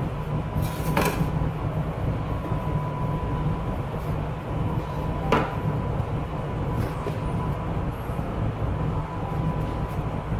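Steady low rumble of kitchen machinery with a thin steady whine above it, broken by a couple of sharp knocks: one about a second in and one about halfway through.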